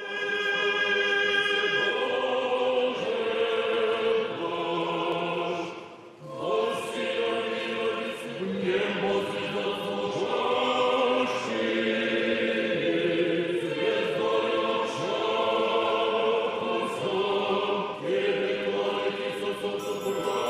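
Orthodox church choir singing a liturgical chant a cappella in long, held chords, with a brief break between phrases about six seconds in.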